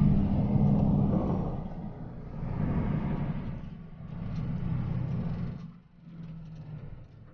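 A motor vehicle's engine running while driving, a low hum that swells and fades several times. It cuts off abruptly at the very end.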